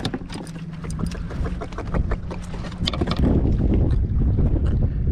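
Wind buffeting the microphone, turning into a loud low rumble about three seconds in, over irregular clicks and knocks as a small trevally is handled and unhooked over a plastic kayak deck.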